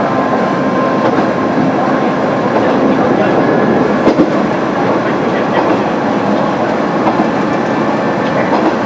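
Kanto Railway KiHa 350 diesel railcar running along the line, heard from inside the car: steady engine and running noise with the wheels clicking over rail joints, and one louder knock about four seconds in.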